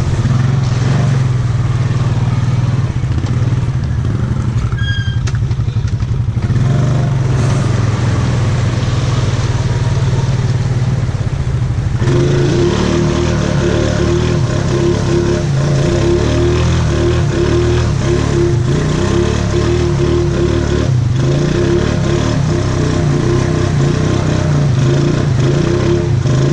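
ATV engine running steadily as it crawls along a muddy trail. About twelve seconds in, the sound gets fuller and a higher steady whine joins the engine note.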